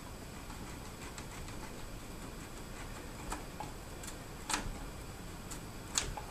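Newcomb 1625M tube amplifier hissing steadily through its speaker, broken by about five sharp crackles and pops as a front-panel control is worked. The crackling comes from a touchy, dirty contact that needs contact cleaner.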